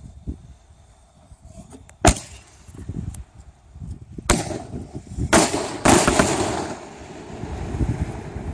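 A 100 mm cylindrical aerial shell with report (salute) inserts goes off in a series of sharp bangs. The first and loudest comes about two seconds in; more follow between about four and six seconds, the last two close together, each trailing off in a rolling echo.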